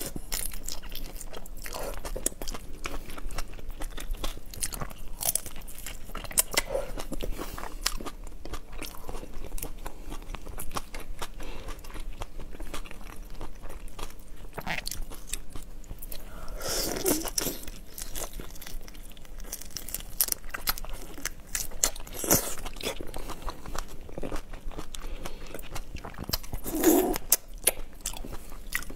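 Close-miked eating of soy-and-chili-marinated raw shrimp: shells crunching and crackling between the teeth and wet chewing, with a few louder bites spread through.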